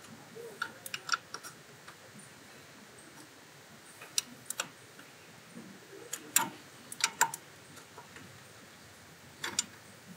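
Ratcheting torque wrench, set to about 12 newton meters, clicking as it tightens the thermostat housing bolts: a dozen or so sharp clicks in small groups.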